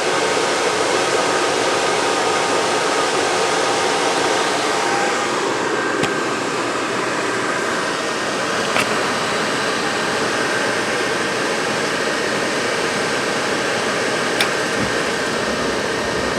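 RV propane furnace running on a test fire, its burner lit: the blower fan runs steadily with a faint whine, with a few sharp clicks along the way.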